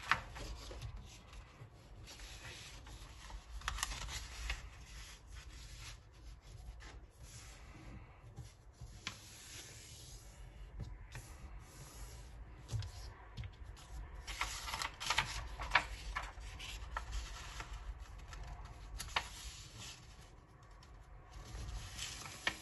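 A sheet of paper being folded by hand into a paper airplane: rustling and rubbing as fingers smooth the paper and press the creases flat. It comes as several separate swishes, with a few soft taps.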